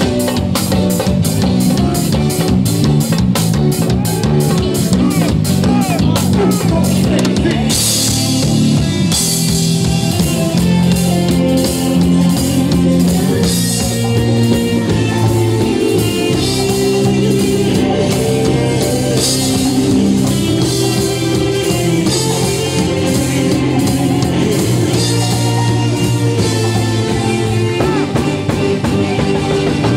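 Live axé band playing an instrumental stretch: drum kit keeping a fast, even beat under bass, guitar and keyboards, with no lyrics sung. The band gets fuller and brighter about eight seconds in.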